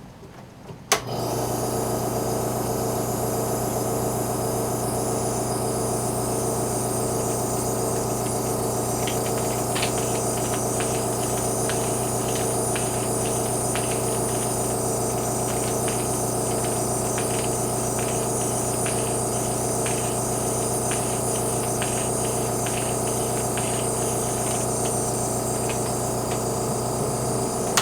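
Nebulizer air compressor switched on about a second in, running with a steady electric hum, then cutting off near the end. Light irregular ticking joins from about nine seconds in.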